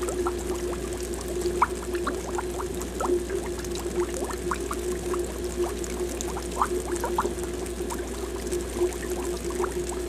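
Aquarium air bubbles rising from air stones, a constant patter of small bubbling blips and gurgles, several a second, over a steady hum.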